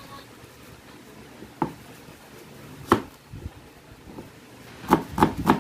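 A kitchen knife chopping on a cutting board while onion and garlic are being cut: single knocks about one and a half and three seconds in, then a quick run of four or five chops near the end.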